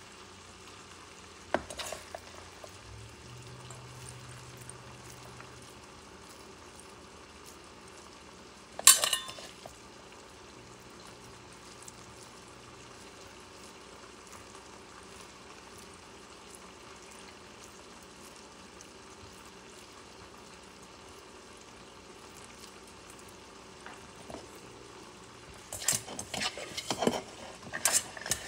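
Hands working wet raw ground-meat mixture in a stainless steel mixing bowl and rolling it into meatballs: soft, squishy handling over a steady faint hiss. There is a sharp knock about nine seconds in, and a run of knocks and clinks near the end as the metal bowl is handled.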